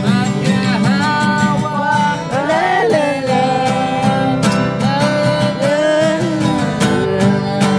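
Acoustic guitar strummed, with a voice singing the melody over it.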